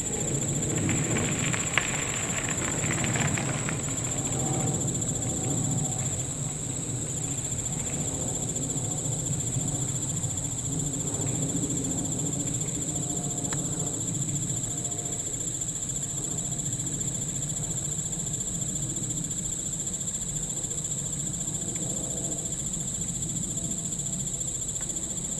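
A steady, high-pitched chorus of insects, with a low rumble underneath and some rustling in the first few seconds.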